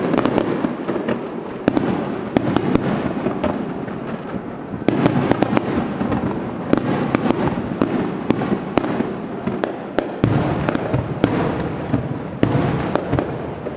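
Fireworks going off: a dense run of sharp bangs over continuous crackling, with fresh loud volleys about five, ten and twelve and a half seconds in.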